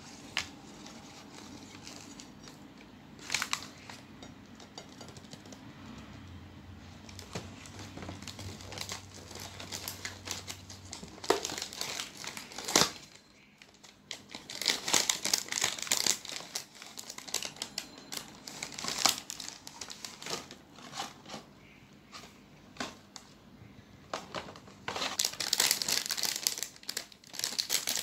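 Swiss roll packaging being handled: a cardboard box opened and its foil wrapper crinkling and rustling. A few separate taps at first, then crinkling in bursts, loudest near the end.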